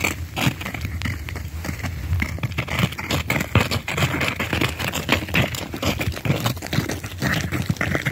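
Footsteps crunching through icy, crusted snow: a continuous, irregular run of crisp crunches.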